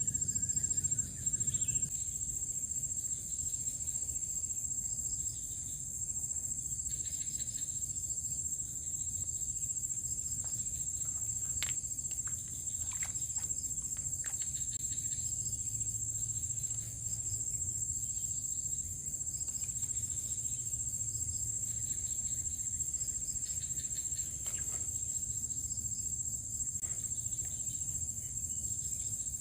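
Steady high-pitched chorus of night insects trilling without a break, with a faint low rumble underneath and a few brief clicks in the middle.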